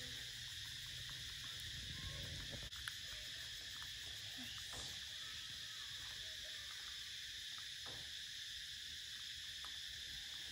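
Steady high-pitched insect chorus, with a few faint clicks and one sharp tap about three seconds in.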